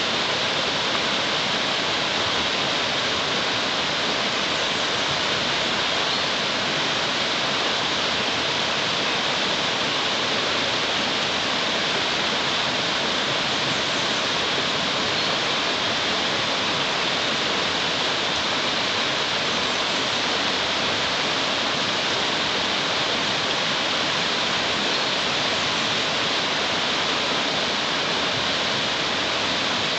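Shallow mountain stream rushing over a rocky riffle: a steady, unbroken rush of water.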